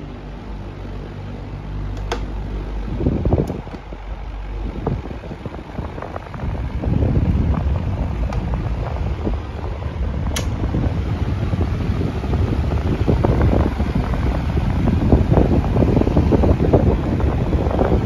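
Universal 18-inch wall fan running: a steady motor hum at first, then a rush of air buffeting the microphone that grows louder from about seven seconds on. Two sharp clicks, about two seconds in and about ten seconds in, the second as a hand works the fan's control knob.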